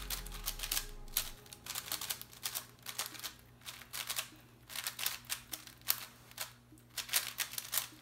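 Cubicle Wushuang M 5x5 speed cube being turned fast by hand: runs of quick plastic clicks and clacks as the layers snap around, broken by short pauses.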